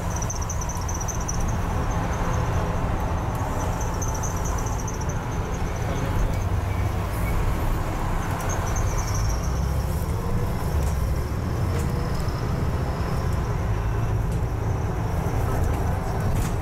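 Double-decker bus driving along, heard from inside on the upper deck: a steady low engine and road drone with a faint high whine that comes and goes.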